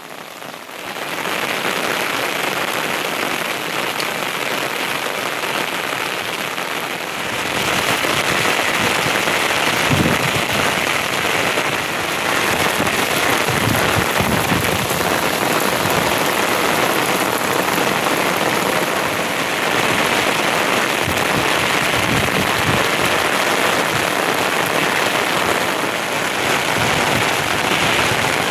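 Heavy rain falling steadily on a surface, growing louder about a second in and again around seven seconds in, with a few heavier drops or drips landing as low thuds.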